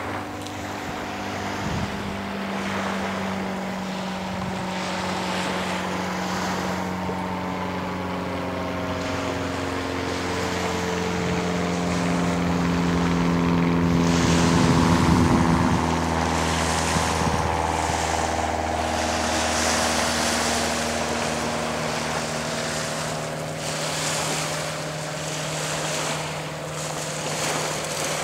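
Cessna 150 light aircraft flying overhead: the drone of its four-cylinder Continental O-200 engine and propeller swells to its loudest about halfway through, then drops in pitch as the plane passes and moves away.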